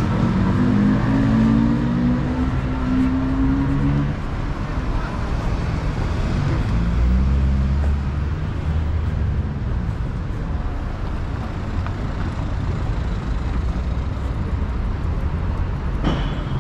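Street traffic: a motor vehicle's engine runs close by, rising a little in pitch over the first few seconds, then gives way to a lower rumble and steady road noise.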